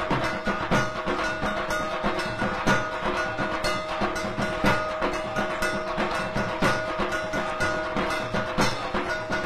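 Background music with a steady held drone note and regular percussion strokes, about two a second.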